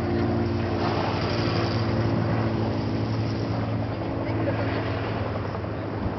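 An engine running steadily with a constant low hum, under a broad rushing noise.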